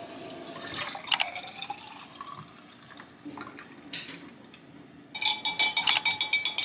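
Cold coffee poured from a bottle into a tall drinking glass, then milk poured in from a carton. From about five seconds in, a straw clinks rapidly against the glass as the drink is stirred, louder than the pouring.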